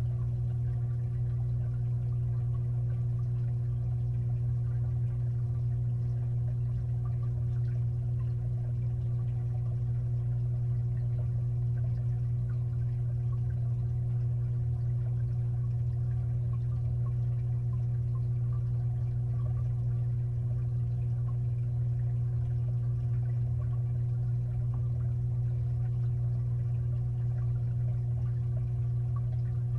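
Aquarium filter running, heard from inside the water of a 55-gallon tank: a steady low motor hum with faint water movement over it.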